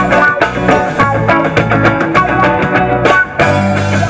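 Live rock band playing an instrumental passage: electric guitars over steady bass notes and a drum kit, with a brief drop in loudness about three seconds in.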